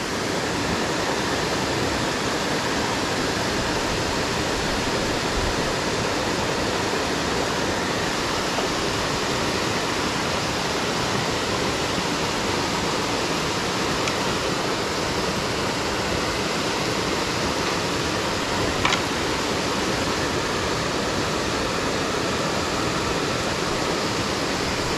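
Steady rush of water falling down a dam wall, an even hiss that doesn't change. One brief click about three-quarters of the way through.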